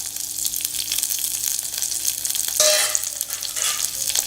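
Thuthuvalai (Solanum trilobatum) leaves sizzling and crackling in a little hot oil in a kadai, being fried before grinding. A louder surge of sizzle comes about two and a half seconds in.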